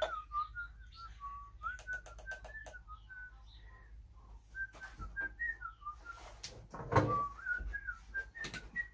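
A person whistling a wandering tune, with light clicks and knocks of handling, a quick run of clicks about two seconds in and one louder knock about seven seconds in.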